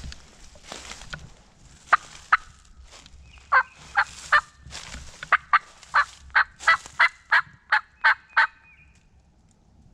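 Turkey yelps: a run of short, sharp calls, a few spaced out at first and then quickening to about three a second, stopping a little before the end.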